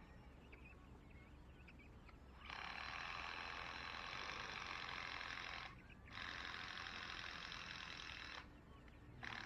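Power drill driving screws into the wooden base frame of a chicken coop, running in three bursts of a few seconds each with short pauses between, the first starting about two and a half seconds in.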